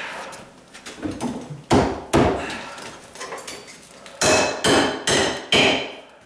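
Hammer blows, working a wedge or pry tool under the plywood countertop base to loosen it from the cabinets. There are two sharp strikes about two seconds in, then four more about half a second apart near the end, with a metallic ring.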